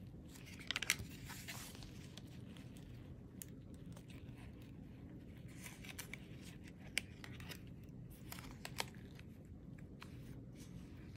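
Pages of a chunky handmade junk journal, built on paper tags, being turned by hand: papery rustling and crinkling in three short spells, with a few sharp clicks of card against card. The loudest click comes about a second in, under a low steady hum.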